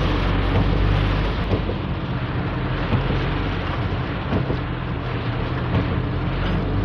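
Heavy rain hitting a car's roof and windshield, over the steady low hum of the engine and tyres on a wet road, heard inside the car.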